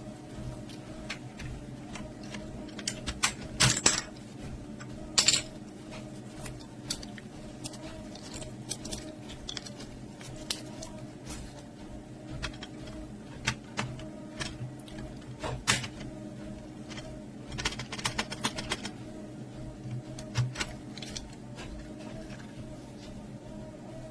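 Irregular plastic clicks and clacks from a mechanical keyboard being handled, its keycaps and switches worked on, with the loudest snaps a few seconds in. A steady low hum runs underneath.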